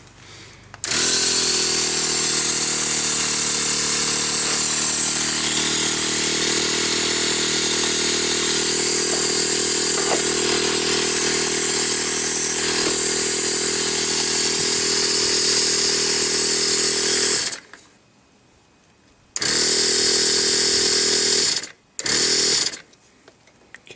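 A 12-volt portable air compressor running, its loose cylinder-head bolts just tightened down. It starts about a second in and runs steadily for about sixteen seconds, stops, then runs twice more in short bursts near the end. Air is still leaking out of it.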